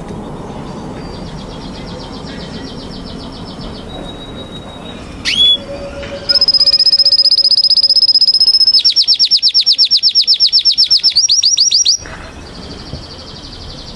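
Domestic canary singing: a short high trill, a sharp single call, then a long loud song of rapid repeated notes in several changing phrases, the last notes sweeping, cutting off abruptly near the end.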